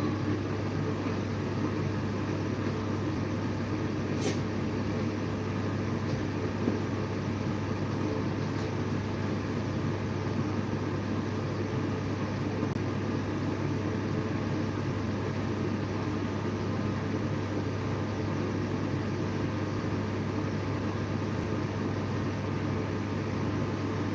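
Steady machine-like hum with a hiss that does not change, and one faint click about four seconds in.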